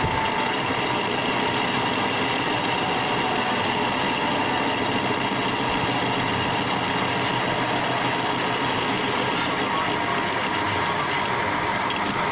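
Continuous loud machine noise with several faint high whining tones, steady throughout.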